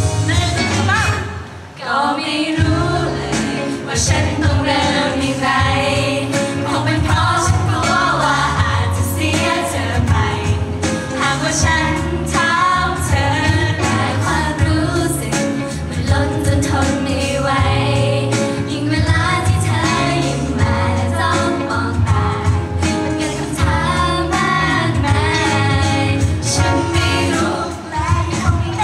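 Live J-pop-style idol song: young women singing into microphones over a backing track with a steady bass beat. The music dips briefly about two seconds in, then the beat comes in.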